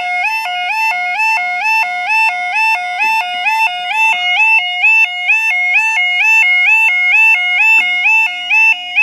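Level crossing yodel alarm sounding: a two-tone warble that steps between a lower and a higher tone a bit over twice a second, repeating steadily, the warning given while a crossing's barriers are working for an approaching train.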